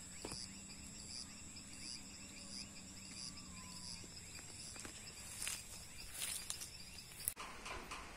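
Evening insect chorus of crickets and other insects: steady high trills with rapidly repeating chirps. A low steady hum sounds under it for the first few seconds, and a few faint clicks come near the end.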